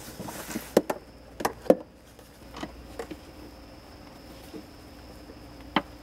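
Phillips screwdriver tightening the screws of a faucet's metal mounting collar: a handful of small, sharp clicks and taps at irregular moments, the loudest in the first two seconds.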